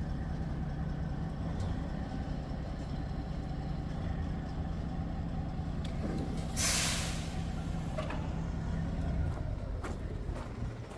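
Large truck's engine idling steadily, with a short loud hiss of air brakes about six and a half seconds in. The engine hum fades near the end.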